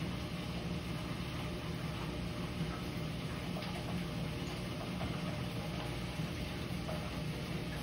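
Aquarium filter running: a steady low hum with a wash of water noise, and a few faint ticks.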